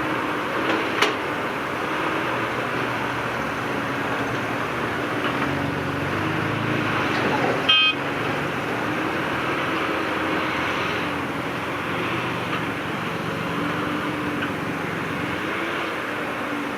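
Diesel engine of heavy earthmoving machinery running steadily under load, with a short sharp sound about halfway through.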